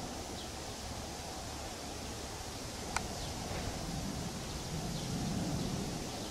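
Boeing 787-8 airliner's jet engines heard from the ground as a steady, even rushing roar, swelling slightly near the end, with a single sharp click about halfway through and a few faint high chirps.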